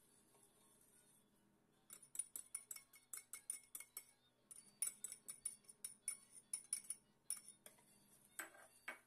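Wire whisk clinking rapidly against a stainless steel pot and the rim of a small bowl while egg yolks are whisked into milk, about four or five light clinks a second, starting about two seconds in and stopping shortly before the end, followed by a brief scrape.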